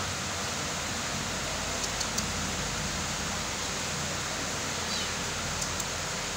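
Steady hissing background noise with a few faint ticks; no cat sounds stand out.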